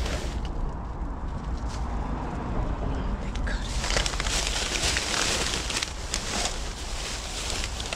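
Thin plastic garbage bags rustling and crinkling as gloved hands dig through them, loudest in the middle seconds, over a steady low rumble.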